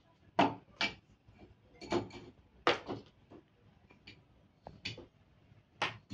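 Long black bar sections of an LED corner floor lamp being handled and fitted together, giving a series of irregular clacks and knocks, about seven or eight in all.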